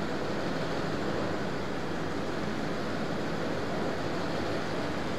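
Steady background noise: an even hiss and hum with no distinct events.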